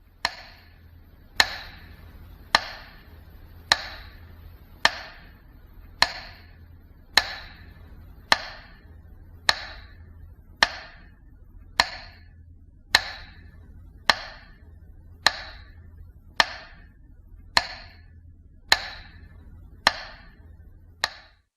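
A sharp chopping knock repeated at a perfectly even pace, about one strike every second, nineteen times, each with a short ringing tail, over a faint low hum.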